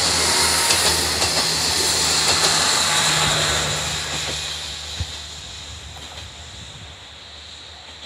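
The Yuzawa Shu*Kura excursion train, a set of diesel railcars, passes close by with a steady low engine hum and hissing wheel-on-rail noise. The noise fades away from about four seconds in as the train runs off. There is a single sharp knock about five seconds in.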